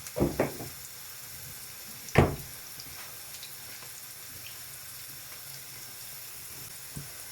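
Kitchen utensil knocks against cookware: a couple of light knocks at the start and one sharp knock about two seconds in, over a faint, steady hiss of cooking.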